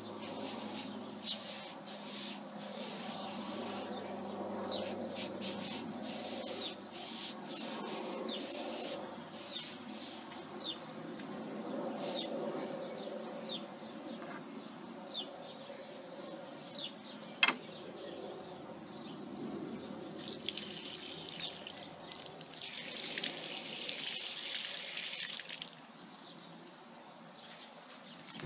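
Running water and splashing as bird-cage parts are washed, with irregular knocks and clatter and short chirps from small birds. Near the end a steady hiss of running water stops abruptly.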